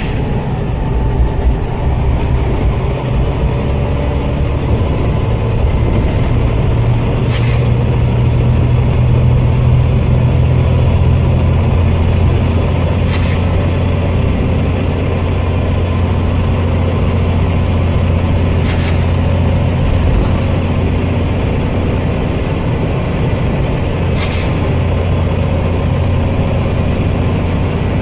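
Scania OmniCity bus running with a steady low engine drone, and four short, loud air sneezes about every five and a half seconds, the sign of its worn-out air tanks.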